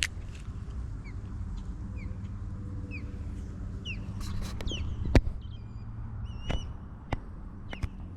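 A bird calling with short downward-sliding chirps about once a second, then a few higher wavering calls, over a steady low rumble. Several sharp knocks, the loudest about five seconds in.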